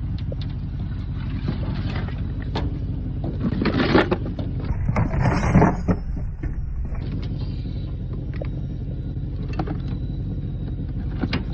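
Pickup truck engine running steadily with a low hum, with a louder stretch of rattling and handling noise about four to six seconds in.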